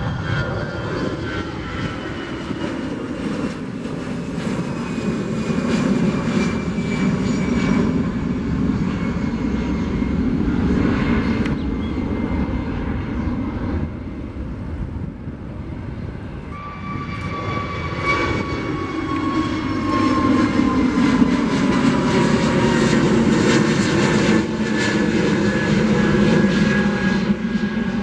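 Airbus A320 jet airliners climbing out after takeoff: a LATAM A320-214's CFM56 engines give a steady rumble with a whine that slowly falls in pitch as the aircraft moves away. About halfway through, an Azul A320neo's Pratt & Whitney geared turbofans take over, again a rumble with a whine gliding downward.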